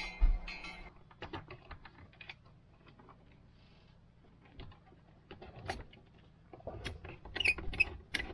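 Light clicking, scratching and rustling of hands handling electrical cables and working wires into a terminal block, with a thump at the very start.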